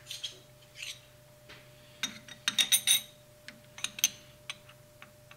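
Metal clinks and clicks from handling a flat metal parallel bar against the jaws of a lathe's four-jaw chuck and the machined ductile-iron nut: scattered light taps, a quick run of several clinks about halfway through, and one sharp clink shortly after.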